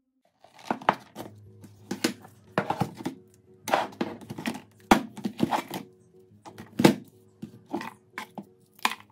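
Knocks and scrapes of phones and a phone box moving in a bucket as it is handled: about a dozen sharp hits, starting about half a second in. Soft background music with low held notes runs underneath.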